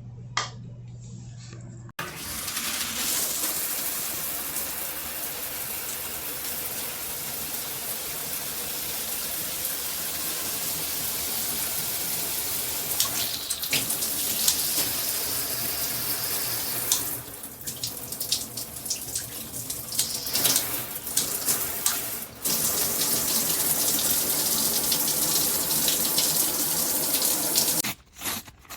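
Water spraying from a handheld shower head: a steady hiss that starts about two seconds in, thins and comes back in the middle, and stops just before the end.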